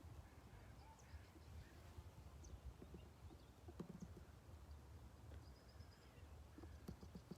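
Near silence outdoors: a faint low rumble with a few soft clicks and knocks, and faint short high chirps about five and a half seconds in.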